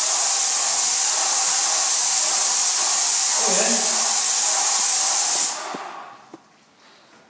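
Airless paint sprayer spraying emulsion through its tip: a loud, steady hiss of atomised paint that stops about five and a half seconds in when the spray is cut off.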